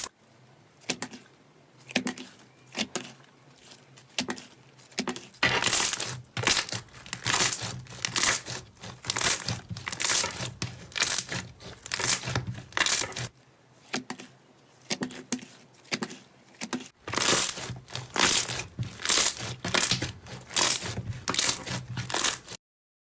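Slime being pressed, poked and stretched by hand, giving repeated crackly, sticky pops and squelches, about one or two a second, that stop abruptly near the end.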